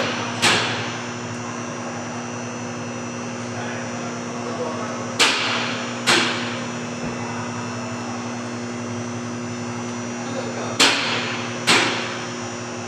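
Three pairs of sharp knocks, the two knocks of each pair about a second apart, each with a short ringing tail, over a steady background hum.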